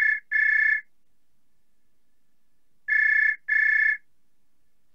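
Telephone ringing with a UK-style double ring: two pairs of short rings about three seconds apart.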